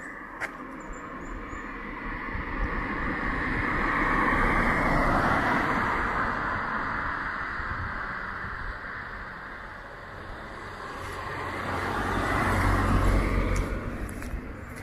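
Two road vehicles, cars, passing one after the other. Each swells up and fades over several seconds, the first loudest about four seconds in and the second near the end, with a deeper rumble.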